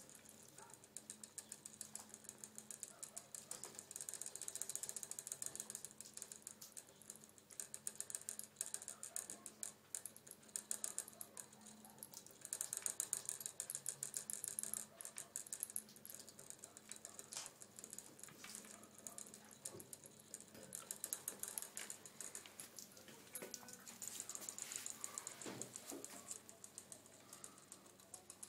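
Gerbil drinking from the metal spout of a cage water bottle: rapid, fine clicking in quick runs as its tongue and teeth work the spout.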